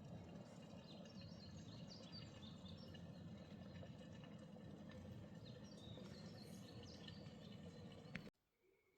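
Faint bird chirps over a steady, low outdoor background noise, which cuts off abruptly near the end.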